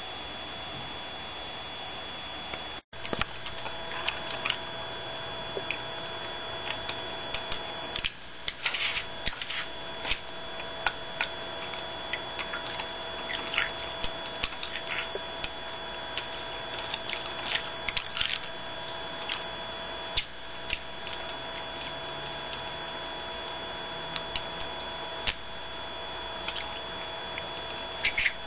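A budgerigar pecking and chirping: scattered short clicks and brief high chirps begin about three seconds in. They sound over a steady whining hum.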